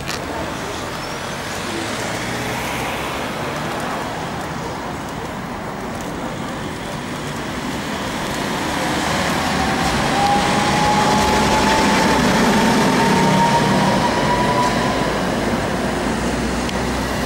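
Tatra tram passing on street track amid city traffic, with a steady rumble that swells for several seconds a little past the middle. While it is loudest, a single whine rises slowly in pitch, as from the tram's traction motors speeding up.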